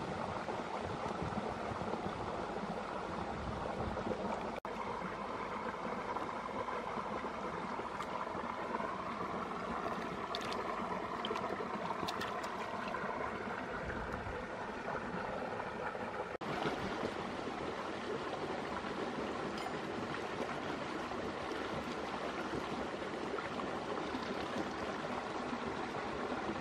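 Shallow rocky stream flowing steadily, with light splashing of water as a gutted snake is rinsed in it by hand.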